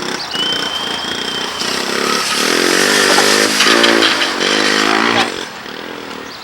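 Three-wheeler ATV's small engine revving hard, its pitch rising and falling in several surges, then dropping off about five seconds in.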